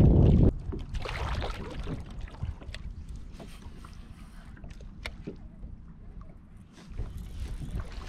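Wind buffeting the microphone for the first half second, cutting off suddenly. Then light water sounds around the kayak, with scattered small clicks and knocks from the fishing rod and reel being handled.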